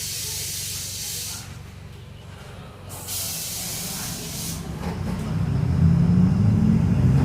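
Two bursts of compressed-air hiss from a city bus's pneumatic system, each about a second and a half long and about three seconds apart. Then the Mercedes-Benz OF-1722M bus's diesel engine picks up, getting louder and rising in pitch as the bus pulls away.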